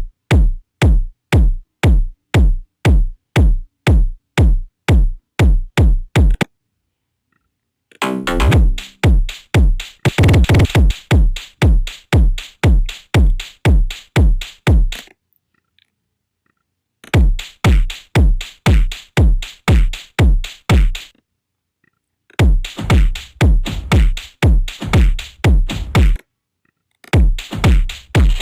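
Krushfunk electronic beat from a drum machine: heavy booming bass-drum hits about two a second, with brighter percussion layered in some sections. The pattern stops and restarts four times with short silences between loops.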